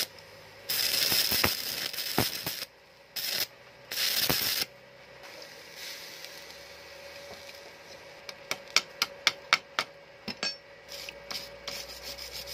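Stick (arc) welding crackling and frying in three bursts over the first four and a half seconds as a stainless steel patch is welded onto a bicycle frame, then the arc stops. From about eight seconds in comes a run of sharp taps, about three or four a second, over a faint steady hum.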